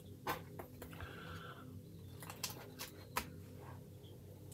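Faint handling noises from a plastic scale model kit as its masking is picked off: a few light, scattered clicks and a brief soft rustle.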